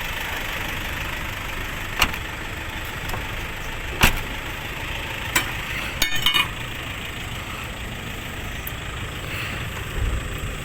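Truck engine idling steadily. Over it come a few sharp knocks, about two and four seconds in and again just after five, then a quick rattling cluster around six seconds.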